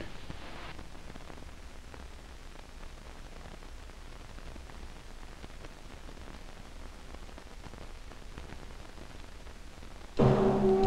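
Steady hiss with faint crackles: the noise floor of an old film soundtrack, with no other sound over it. Near the end, brass music starts loudly.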